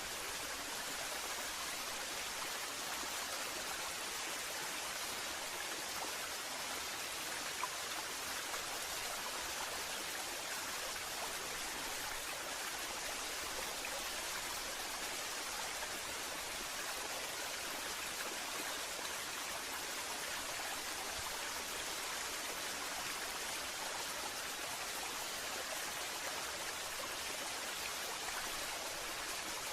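Waterfall: water falling and splashing in a steady, even hiss, mostly high-pitched with little low rumble.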